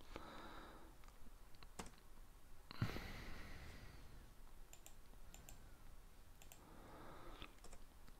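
A few faint, scattered clicks of computer keyboard keys and a mouse, as keyboard shortcuts are pressed and the mouse is clicked. The strongest click, a duller thump, comes about three seconds in.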